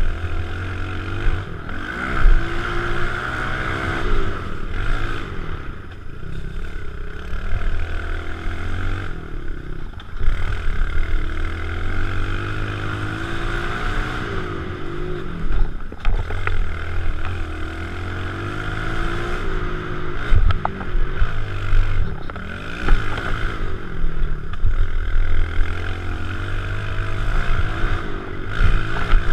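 Kawasaki KLX110 pit bike's small single-cylinder four-stroke engine being ridden hard, its pitch rising and falling again and again as the throttle is opened and rolled off through the turns.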